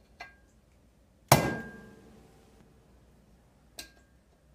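A mallet strikes a screwdriver set against the governor shaft in a Predator 212's aluminium crankcase, to knock out the stubborn governor gear centre piece. There is one hard blow about a second in, with a short ringing after it, and lighter taps just before and near the end.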